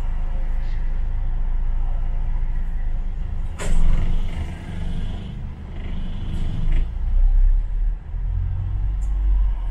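London bus heard from inside, with a steady low engine and road rumble. A short, sharp hiss of air comes about three and a half seconds in, followed by a fainter hiss, and the low rumble grows heavier in the last few seconds.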